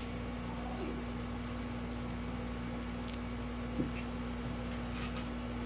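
Steady hum over a constant background hiss, with one faint click about four seconds in.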